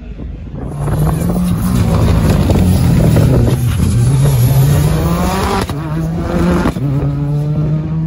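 Sprint competition car accelerating hard past, its engine note climbing and then breaking twice near the end as it changes up gears.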